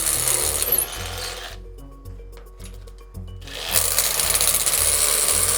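Power drill running, cutting out about a second and a half in and starting again about two seconds later, over background music with a steady low beat.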